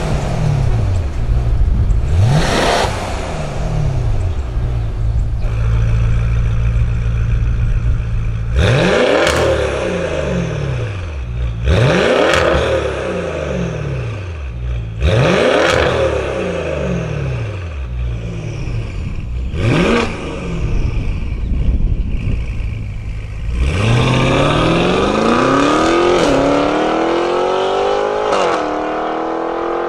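Maserati Levante GTS twin-turbo V8 through a Fi Exhaust valvetronic catback with sport downpipes. Near the start it blips once with the exhaust valves closed and settles into a steady idle. With the valves open it then gives four sharp revs, each dropping back to idle, and near the end it accelerates hard, the pitch climbing through two upshifts.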